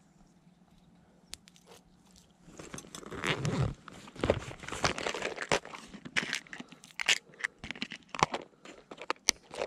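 Close handling noise of a clear plastic lure box being handled and opened: sharp plastic clicks and crackling rustles that start about two and a half seconds in and continue in an irregular run.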